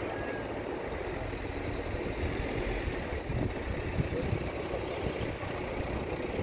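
Firefighting helicopter's engine and rotor, a steady rumble during a water-bucket drop.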